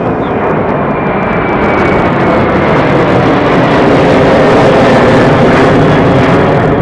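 Airbus A330-200 jet engines at takeoff power as the airliner climbs out close overhead: a loud, rough jet rumble that builds to its loudest about four to five seconds in. A faint high whine slides down in pitch over the first two seconds.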